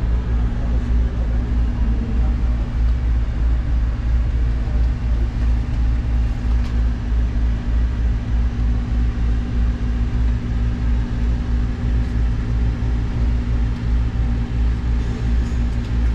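Engine running steadily at constant speed: a low hum with an even, fast throb.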